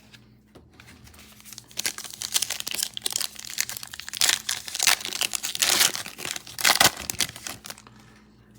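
Trading card pack wrapper crinkling and tearing as the pack is opened, in a run of irregular crackles lasting several seconds.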